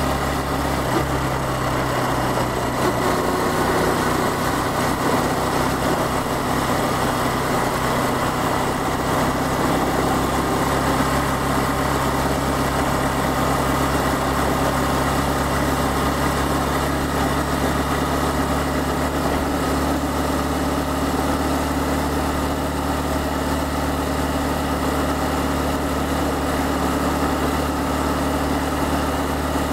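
Honda Cross Cub 110's small single-cylinder four-stroke engine running at a steady riding speed, heard from the rider's head with wind and road noise. The engine note shifts in pitch about three seconds in.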